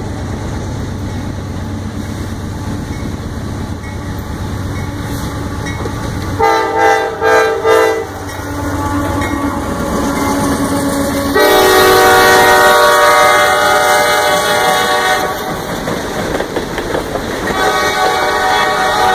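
Freight locomotive's air horn sounding over the steady low rumble of an approaching train: a few short blasts about six seconds in, then a long blast of about four seconds, and another starting near the end.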